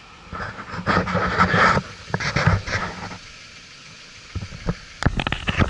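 A vehicle engine idling with indistinct noises over it. About five seconds in, the car-audio subwoofer in the full-size SUV starts playing, loud and heavy in the bass.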